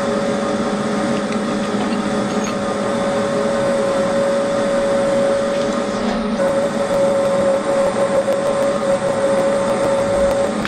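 Bridgeport milling machine running, its end mill cutting into a cylinder-cover casting to open out the bore: a steady machine hum with a constant whine.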